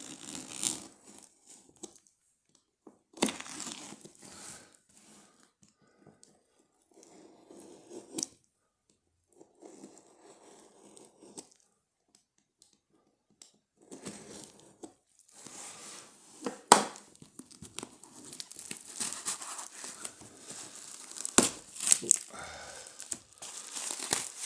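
Packaging being torn and crumpled by hand as a lock is unwrapped from its box: stop-start rustling that gets busier in the second half, with a sharp snap about two-thirds of the way in and another near the end.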